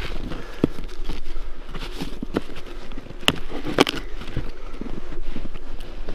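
Ptarmigan being cleaned by hand and knife: scattered sharp clicks and snaps as skin and feathers are pulled away and meat is cut free. The strongest snaps come between about two and a half and four seconds in.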